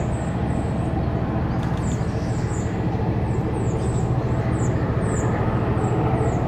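Steady low drone of a Hayabusa-class missile boat's gas turbines running at speed, heard from afar. Over it, a small bird gives about a dozen short, high, falling chirps.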